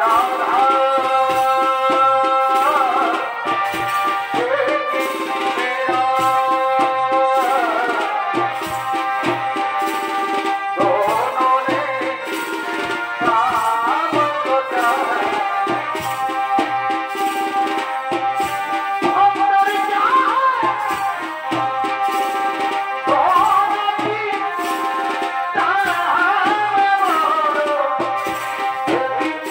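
Purulia Chhau dance accompaniment: drums beat a steady rhythm under a held melody line whose notes slide up and down between pitches.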